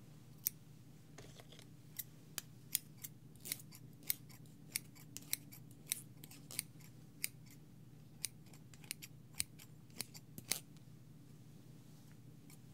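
Haircutting scissors snipping close to the microphone: about twenty sharp single snips at an uneven pace, stopping shortly before the end.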